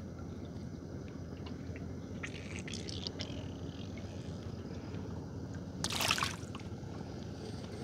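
Water dripping and splashing, with a short louder splash about six seconds in, over a steady low rumble.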